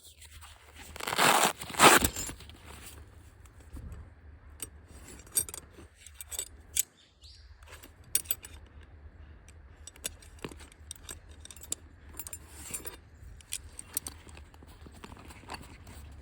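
Camping gear being handled: metal pieces clinking and rattling, with rustling and scraping. The loudest part is a scraping rustle about a second in.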